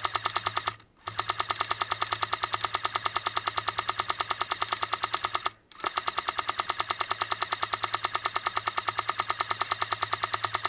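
Airsoft M60 support gun firing long sustained bursts of rapid, evenly spaced shots. The fire stops twice, briefly, about a second in and again near the middle.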